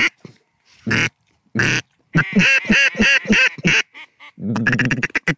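Duck call blown in a series of quacks: two single quacks, then a quick run of about eight, then a faster rattling run near the end, to bring ducks in to the decoys.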